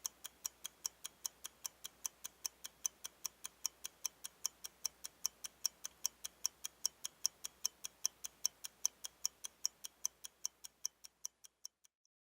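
Clockwork ticking, sharp and even at about five ticks a second, fading away and stopping just before the end.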